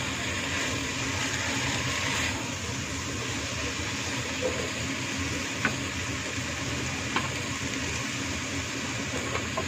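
Chopped choy sum and beef sizzling in a hot pot as they are stirred with a silicone spatula, with a couple of light clicks of the spatula against the pot partway through. A steady low hum runs underneath.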